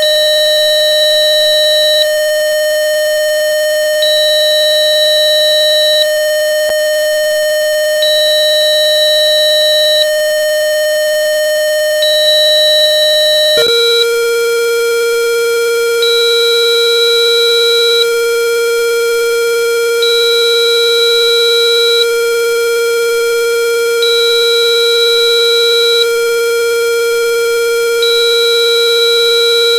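Synthesized frequency-generator tone, a steady 608.7 Hz hum with a bright, buzzy edge, that steps down about halfway through to a steady 464.9 Hz. A higher beep sits over it throughout, two seconds on and two seconds off.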